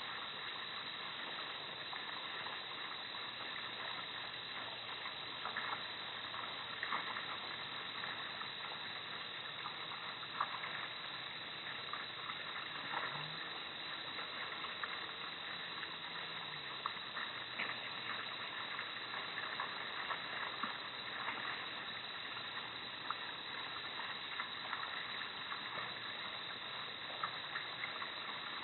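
Steady hiss of outdoor night ambience through a security camera's small microphone, with scattered faint ticks and clicks.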